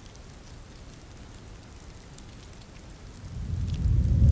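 Steady rain with faint scattered drop ticks, then a low rumble of thunder swelling up in the last second and becoming the loudest sound at the end.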